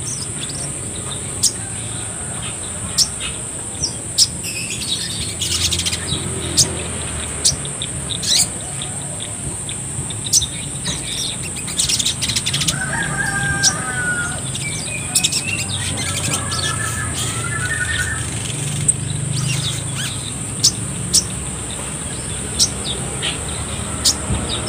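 Caged male sogon (brown-throated sunbird) calling: sharp, high chips repeated at irregular intervals, with two short warbled phrases about halfway through, and its wings fluttering as it hops. A steady high-pitched whine runs underneath.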